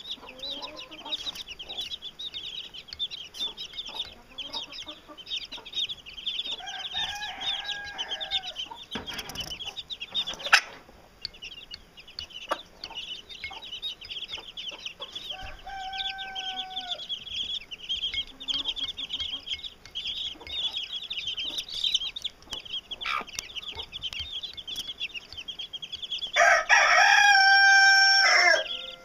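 Blue Wheaten Ameraucana chicks peeping constantly in high, rapid calls, with a hen giving a few lower clucks. Near the end a rooster crows loudly, a single long call lasting about two seconds.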